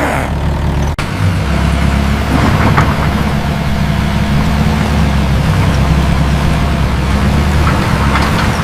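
Mini excavator engine running steadily at a held throttle, with a brief break about a second in.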